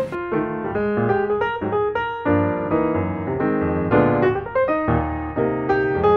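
Background music led by a piano or electric piano, a continuous run of notes.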